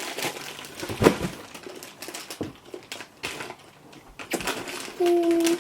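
Scattered crunching, crinkling and knocks from snack bags and chips being handled, the loudest knock about a second in. A short, steady single-pitch tone follows near the end.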